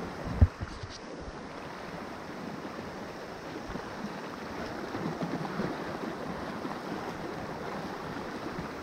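Sea water washing and splashing against shoreline rocks, a steady rushing wash, with one sharp thump about half a second in.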